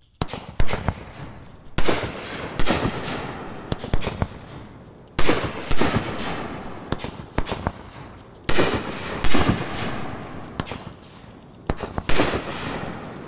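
Two large-bore 500 g consumer firework cakes, 108 Fireworks' Disruptor and Demons of the Night, firing together: sharp, loud shot and shell-break bangs come every second or so, each trailing off in a fading rumble.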